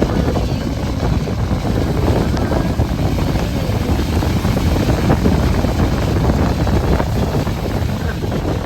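Steady, loud rumbling noise with wind buffeting the microphone.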